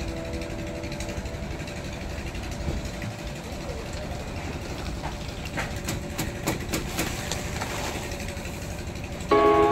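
Steady low rumble with a cluster of sharp clicks and knocks about five to seven seconds in. Background music cuts back in loudly just at the end.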